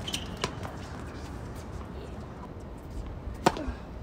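Tennis balls struck by racket strings: a light pop about half a second in, then a sharp, louder crack of a flat serve about three and a half seconds in, over a steady low background noise.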